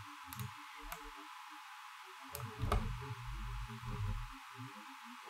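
Faint computer mouse clicks, a few scattered through, with a low rumble between about two and four and a half seconds in.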